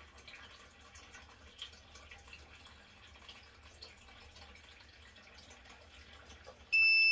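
Faint ticks as the multimeter probes are handled against the breaker box terminals, then near the end a loud, steady, high-pitched electronic beep from the digital clamp meter as its leads make contact across neutral and ground.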